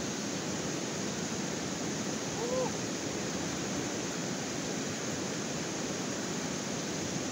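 Fast river rapids rushing steadily: a loud, even wash of white water. About two and a half seconds in, a short rising-and-falling tone sounds briefly over it.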